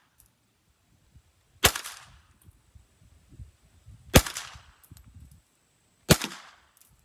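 H&K MP5 .22 LR pistol fired semi-automatically: three single shots about two seconds apart, each with a short echo tail.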